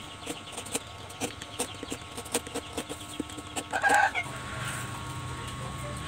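Small knife scraping and cutting a piece of coconut shell: a run of small sharp clicks and scratches. A brief loud call breaks in about four seconds in.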